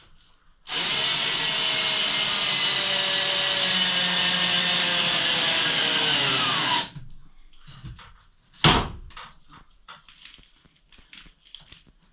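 Power drill driving a screw into wood for about six seconds, its motor pitch sagging toward the end as the screw draws tight, then stopping. A single loud knock follows about two seconds later, then faint clicks of handling.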